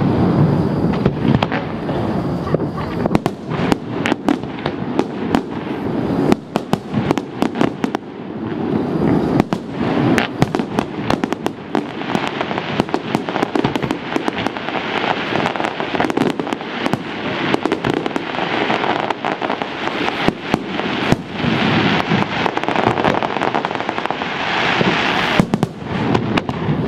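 Fireworks display: aerial shells bursting in a rapid, continuous series of sharp bangs, growing into a dense crackling from about twelve seconds in.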